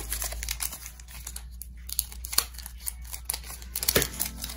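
Rustling and crinkling of trading cards being handled and flipped through, with many short sharp flicks and clicks; the loudest come about four seconds in.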